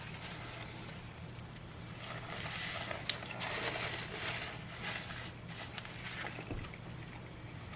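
Crinkling and rustling in irregular bursts as the burger and its paper wrapper are handled, over a steady low hum, with one sharp click about three seconds in.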